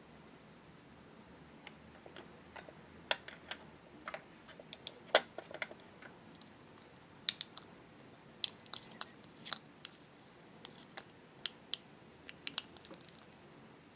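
Light, irregular clicks and taps of small hard-plastic toy kitchen pieces being handled: a pot lid, a small pot and a plastic spoon knocking together. The loudest tap comes about five seconds in.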